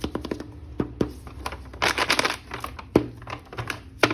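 Plastic toy packaging being handled: scattered sharp clicks and taps, with a brief crinkling rustle about two seconds in.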